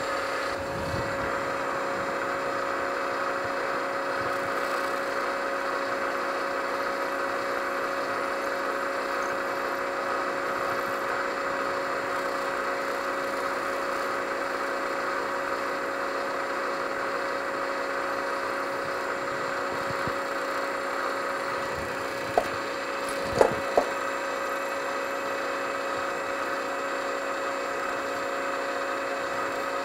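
Milling machine running steadily with a small drill bit in its chuck, drilling a port hole in a cast model steam engine base. Three sharp clicks come a little over twenty seconds in.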